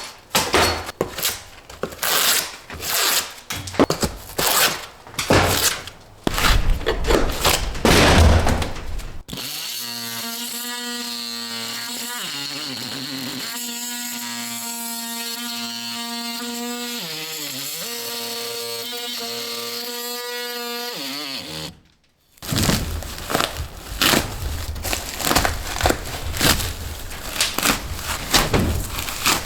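Repeated knocks, clatter and tool noise from ceiling tear-down and repair work, with music in place of it for about 12 seconds in the middle, then more knocking.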